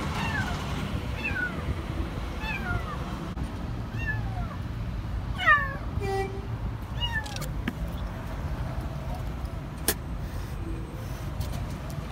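A kitten stuck in a car's rear wheel area meowing over and over in distress, short calls that each fall in pitch, about one a second, the loudest about five and a half seconds in. A single sharp click sounds near the end.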